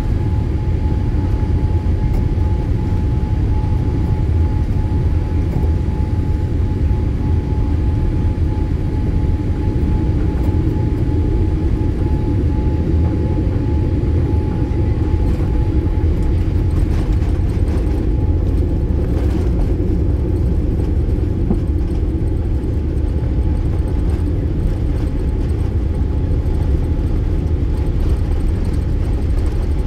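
Steady low rumble of an airliner after landing, with a thin steady whine that fades out about 16 seconds in.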